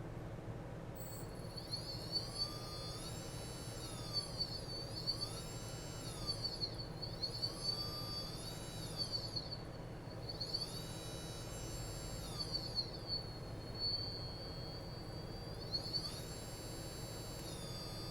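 Chaos 3115 brushless drone motor spun up and down on a bench ESC, its high-pitched whine rising and falling through several throttle sweeps and held steady for a few seconds in between. It sounds normal, with no scratching from inside the motor.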